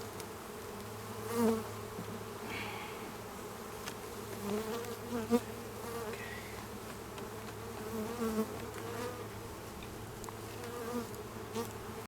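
Honeybees buzzing around an opened hive, a steady wavering drone that swells briefly whenever a bee flies close, loudest about five seconds in.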